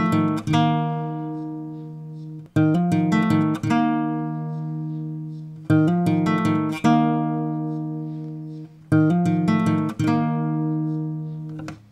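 Background music: acoustic guitar strumming chords, struck in pairs about a second apart and left to ring and fade, the pattern repeating about every three seconds.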